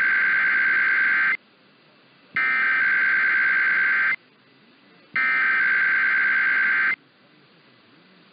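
Emergency Alert System SAME header: three bursts of digital data tones, a harsh buzzing screech, each lasting just under two seconds with about a second's pause between them.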